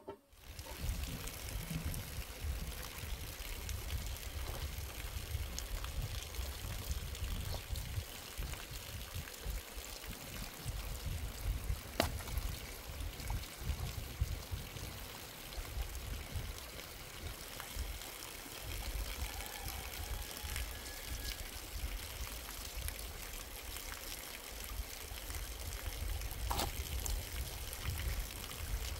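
Steady rush of running water, with a low rumble underneath and a sharp click about twelve seconds in and another near the end.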